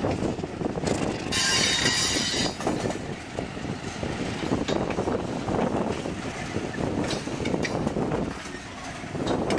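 A train led by an ALCO RS-11 diesel locomotive rolling past, its wheels clattering over the rails, with a brief burst of high-pitched wheel noise about a second and a half in.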